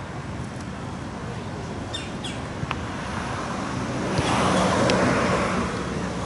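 A road vehicle passing by, its tyre and engine noise swelling to a peak about five seconds in and then fading, over steady outdoor background noise, with a few short chirps a little earlier.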